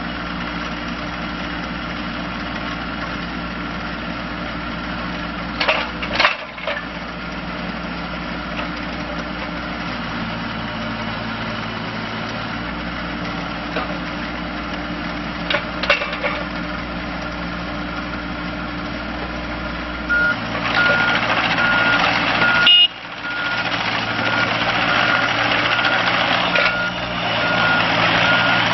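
Diesel engine of a 2010 John Deere 27D mini excavator running steadily, with a couple of short knocks. In the last third the machine gets louder and a travel alarm beeps repeatedly, about two beeps a second.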